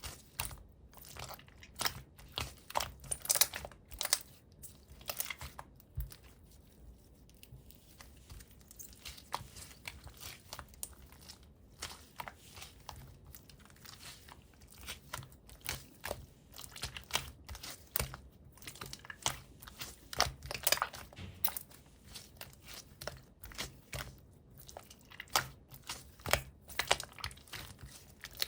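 Clear slime being squished, pressed and stretched by hand, giving irregular sticky clicks and small air-bubble pops, sparser for a few seconds about a quarter of the way in.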